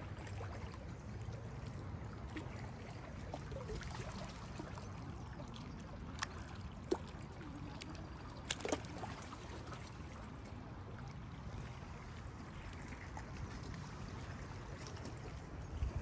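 Steady water sound with a low rumble, broken by a few sharp clicks about six and eight and a half seconds in.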